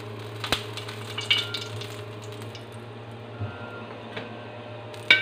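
A metal spatula clinking and scraping against a frying pan as a fried vegetable pancake is lifted out, a few sharp clinks with the loudest near the end. Under it is a faint sizzle of oil and a steady low hum.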